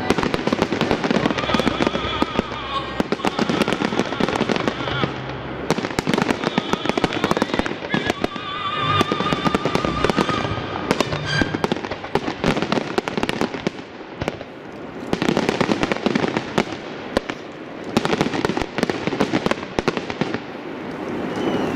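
Fireworks display: shells bursting and crackling in quick, dense succession over music, with a brief lull about two-thirds of the way through.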